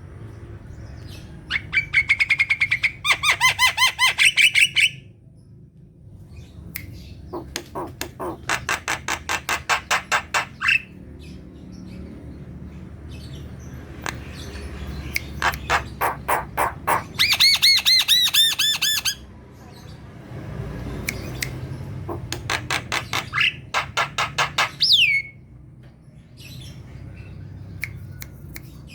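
Javan myna singing in loud runs of rapid, harsh repeated notes, each run lasting a few seconds with short pauses between, and a downward-sliding whistle near the end.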